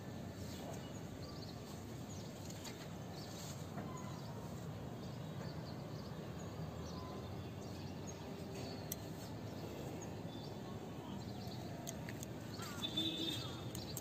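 Outdoor ambience: a steady low background hum with faint, scattered bird chirps, and a brief, slightly louder burst of chirping near the end.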